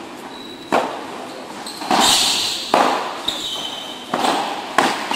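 Padel rally: the ball knocked back and forth by solid padel paddles and bouncing on the court, about five sharp knocks ringing in a large hall, with brief high squeaks between shots.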